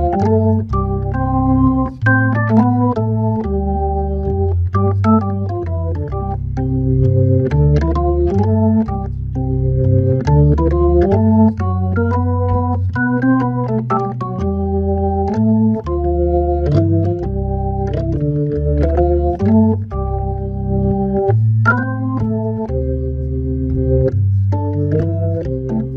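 Hammond B3 tonewheel organ playing a solo jazz waltz: sustained, changing chords over a low bass line, with short clicks as notes start.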